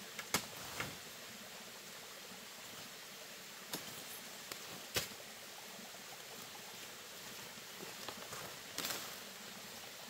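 Steady forest background hiss with a few sharp snaps and cracks of plants in the undergrowth, and a rustle of someone stepping through the vegetation near the end.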